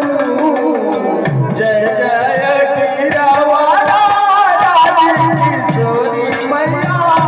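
Indian devotional stage music: a wavering melody line that glides up and down over low drum strokes and a steady, fine high-pitched ticking rhythm.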